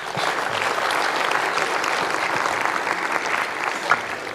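Audience applauding: many hands clapping together, starting at once and dying down near the end.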